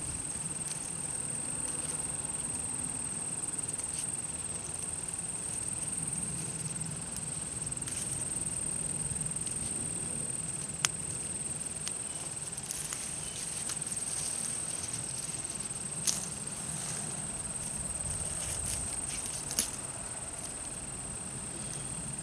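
Field insects singing a steady high-pitched drone, with a few sharp clicks and rustles from goldenrod stems being handled.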